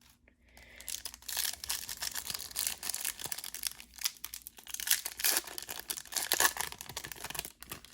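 Crinkling and tearing of a plastic trading-card pack wrapper as it is opened: irregular crackling that runs until just before the end.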